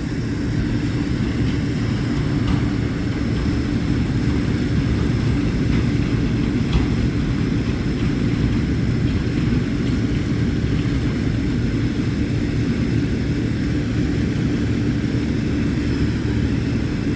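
Combine harvester running steadily while harvesting corn: a constant engine and machinery drone with a strong low hum.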